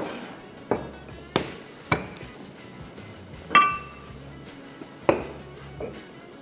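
Rolling pin knocking and tapping on the worktop as puff pastry is rolled out: about seven sharp, irregular knocks, one about three and a half seconds in with a brief ringing clink. Soft background music plays underneath.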